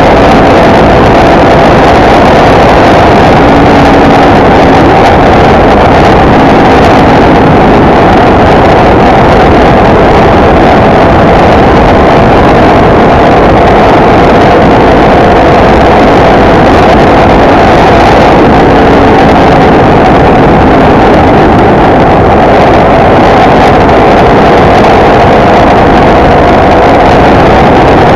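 Motorcycle cruising at a steady highway speed: a loud, unvarying engine drone under heavy wind rush on the camera microphone.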